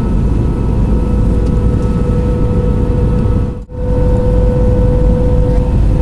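Jet airliner cabin noise: a loud, steady drone of engines and airflow with a constant hum running through it. It drops out for a split second a little past halfway, then carries on.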